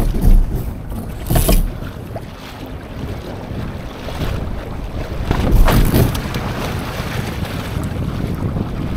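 Wind buffeting the microphone and water washing along the hull of a Laser (ILCA) sailing dinghy under way. Louder gusts come just after the start and again around six seconds in.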